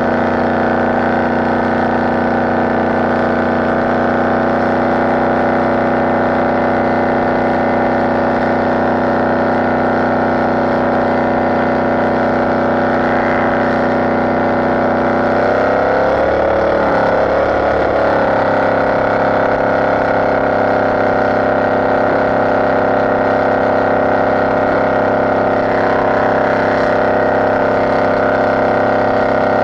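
Inboard engine of a small open speedboat running steadily under way, a constant drone. About halfway through its pitch wavers and dips for a few seconds, then settles again.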